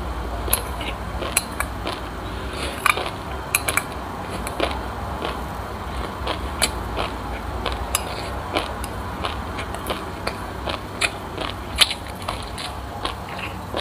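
Close-miked chewing of a mouthful of crunchy sesame seeds with passion fruit: many sharp, irregular crackles and crunches, with a metal spoon scraping and clinking in a glass bowl. A low steady hum sits underneath.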